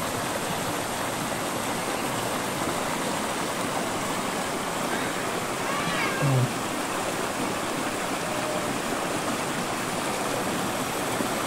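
Shallow rocky river rushing over boulders and small rapids, a steady rush of water, with a brief low bump and a faint high call about six seconds in.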